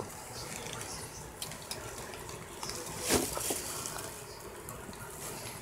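A puppy chewing and mouthing, with small clicks and one short, louder noise about three seconds in.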